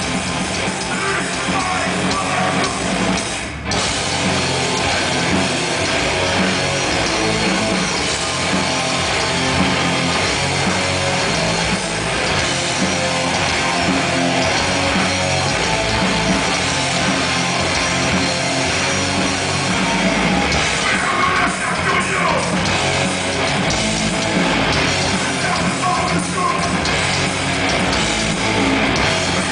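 Hardcore punk band playing live: distorted electric guitars and a drum kit with cymbals, with the vocalist's voice over them. The band stops for an instant about three and a half seconds in, then comes straight back in.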